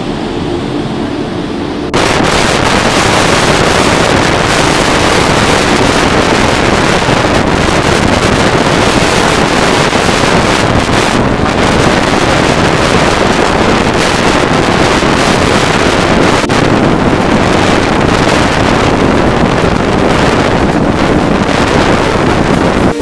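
Strong monsoon wind buffeting the microphone over rough sea and surf, a dense steady rush that jumps louder about two seconds in.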